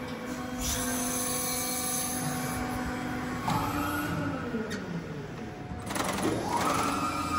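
Press brake running with a steady motor hum; about halfway through its drive whine glides up in pitch, and near the end it dips and climbs again as the ram moves.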